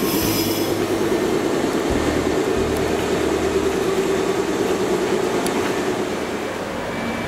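Meitetsu electric train running at a station platform: a steady drone with rumbling rail noise, easing off slightly near the end.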